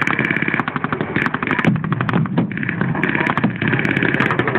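Several rapid bursts of blank gunfire from machine guns and rifles, the shots coming in quick runs, over the steady running of vehicle engines.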